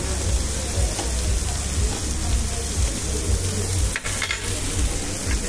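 Vegetables sizzling steadily on the grill plate of an electric hot pot, with tongs stirring and turning them. There is a brief clink about four seconds in.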